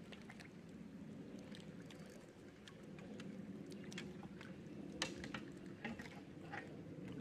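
Faint scattered clicks and taps from a fishing rod, reel and line being handled to free a line wrapped around a bass boat's trolling motor, with one sharper click about five seconds in, over a low steady hum.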